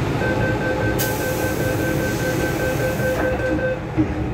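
MTR M-Train door-closing warning: rapid steady beeping for about three and a half seconds, with a hiss setting in about a second in, then the train doors shutting with a short thump near the end.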